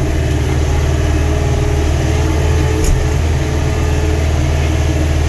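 A David Brown 1490 tractor's four-cylinder diesel engine running steadily under way, heard from inside the cab. There is a single brief click about three seconds in.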